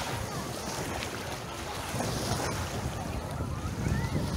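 Small sea waves lapping and washing over a shallow sandy shoreline, with wind rumbling on the microphone.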